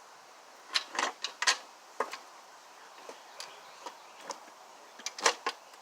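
Irregular clicks and light knocks of mounting bolts being fed through the holes of a pressure washer pump as it is lined up on the engine, the loudest knock a little past five seconds in.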